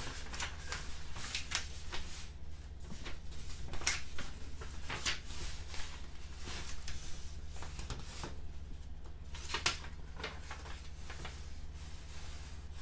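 Paper pages of a model kit's instruction booklet being turned and rustled by hand, in a series of separate crinkles, over a faint steady low hum.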